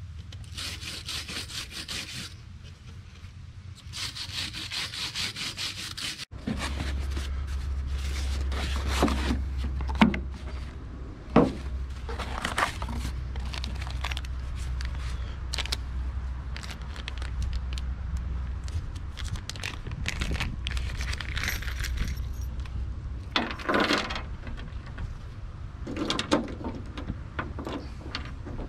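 Wire brush rasping on the metal of a truck strut in two spells of quick strokes. Then metal parts clink and knock, and a plastic bag of hardware rustles as the parts are handled, over a steady low rumble.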